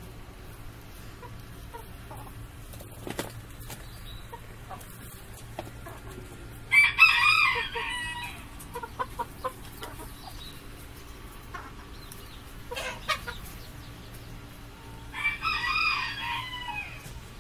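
Rooster crowing twice, about eight seconds apart, each crow about a second and a half long, with short, quieter chicken clucks between the crows.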